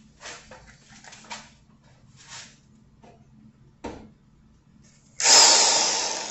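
A faint click, then near the end a power drill run briefly, starting loud and winding down. The drill works again now that a tripped breaker has been reset.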